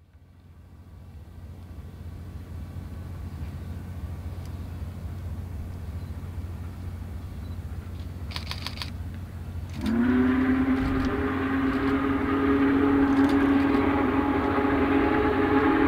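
Union Pacific Big Boy 4014's steam whistle: a low steady rumble fades in. About ten seconds in, a deep chord whistle sounds, bending up as it opens and then held for about six seconds.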